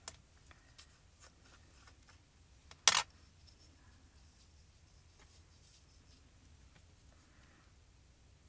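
A single sharp click about three seconds in as the plastic lid comes off a small pot of Perfect Pearls powder, with faint light ticks and the rustle of a brush being handled.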